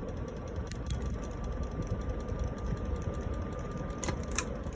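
Evergo 4C-10LW 42-inch ceiling fan running on high: a steady rush of air with a thin motor hum. Near the end the hum stops and a few sharp clicks follow.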